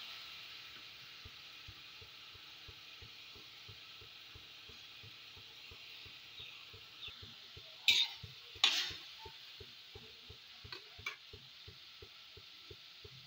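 Pineapple pieces sizzling softly in hot oil in an aluminium kadai, the sizzle slowly dying down, with a faint regular ticking about three times a second. About eight seconds in, a spatula knocks and scrapes twice against the pan, the loudest sounds.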